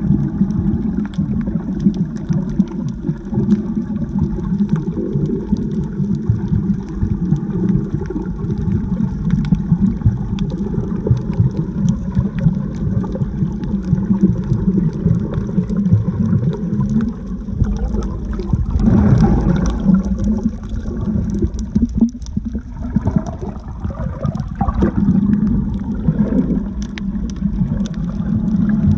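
Muffled sloshing and gurgling of water heard from underwater, with many small clicks and crackles throughout. The water swells louder twice, about two-thirds of the way through and again a little later.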